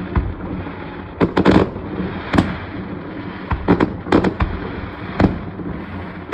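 Aerial fireworks shells bursting in an irregular series of sharp booms, some coming in quick pairs, each trailing off in a short echo over a steady background noise.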